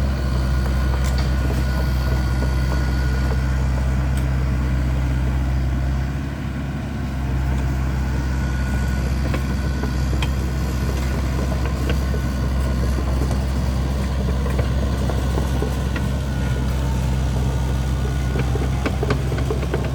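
Kubota U50-5S mini excavator's diesel engine running steadily, its level dipping briefly about six seconds in. Scattered short clicks and knocks sound over it, a cluster of them near the end.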